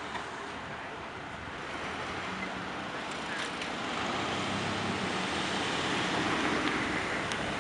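Street traffic at an intersection: cars and pickup trucks pulling through with engines running and tyres on the road. It gets louder about halfway through as a pickup passes close by.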